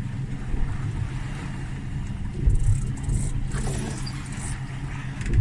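Suzuki 200 outboard engine running steadily, a constant low hum under wind and sea noise, with a brief louder low bump about halfway through.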